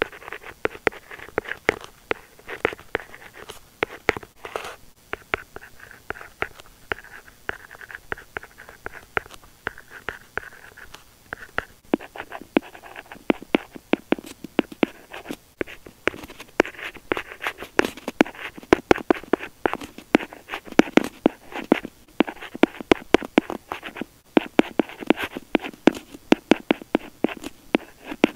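Pen writing on paper by hand: a steady run of short scratchy strokes and taps, getting louder and busier about halfway through.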